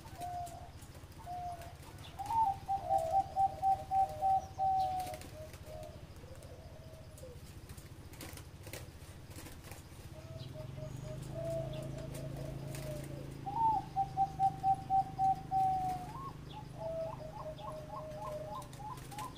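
Zebra dove singing its staccato cooing song: two bouts of rapid, evenly repeated coo notes, about 2 seconds in and again about 14 seconds in, with shorter single coos and a quick trill between and after.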